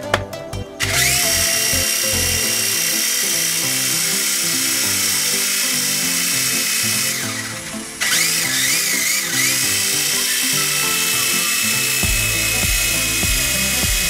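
High-pitched whine of a toy RC helicopter's small electric rotor motors, over background music. The whine spins up about a second in and eases off shortly before the eighth second. It comes straight back with a wavering pitch as the throttle is worked, then holds steady.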